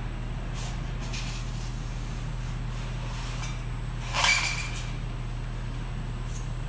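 A large foam block is laid onto a stack of sandwich-panel layers and slid into place, giving one short scraping squeak of foam on foam a little after four seconds in, over a steady low machinery hum.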